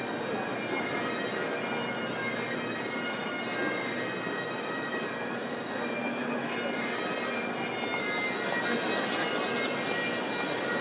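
Bagpipes playing a tune over their steady drones, continuing evenly throughout.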